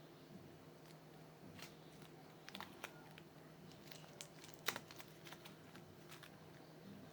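Faint sticky clicks and squelches of homemade slime being mixed by hand to work colour into it, coming irregularly, with the sharpest snap about four and a half seconds in.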